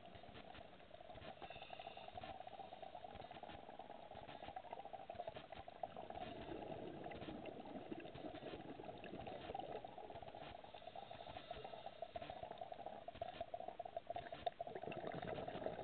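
Underwater ambience: a steady rushing noise with many faint scattered clicks and crackles, a little louder near the end.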